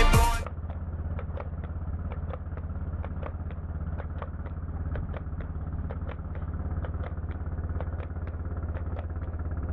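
A harness horse's hooves clopping on an asphalt road at a fast trot, sharp clicks about three a second, over the steady low drone of a running motor-vehicle engine. Music cuts off just after the start.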